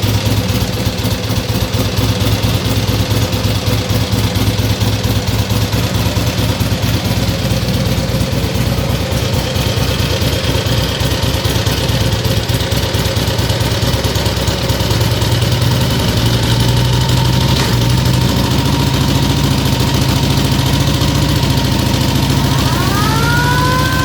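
Harley-Davidson XLH Sportster V-twin engine idling with an even pulsing beat, its speed picking up a little about two-thirds of the way through. Near the end a siren starts winding up, rising in pitch.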